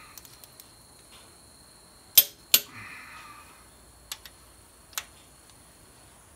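Click-type torque wrench tightening a DT466E cylinder head bolt to 150 ft-lb: two sharp, loud clicks about two seconds in as it reaches the set torque, then a few lighter metal ticks from the wrench's ratchet as the handle is swung back.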